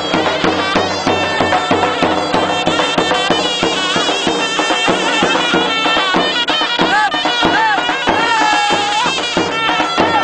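Lively traditional folk dance music: a reedy wind melody with bending, ornamented notes over a steady drumbeat.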